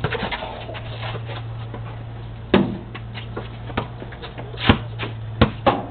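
A basketball bouncing on a concrete driveway: several irregular sharp thuds, most of them in the second half, over a steady low hum.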